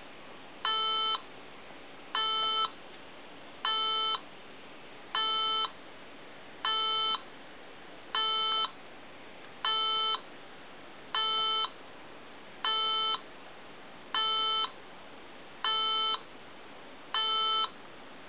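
LEGO Mindstorms NXT brick's built-in speaker beeping, one short electronic tone about every one and a half seconds, a dozen times. The program keeps beeping until the correct button on the brick is pressed.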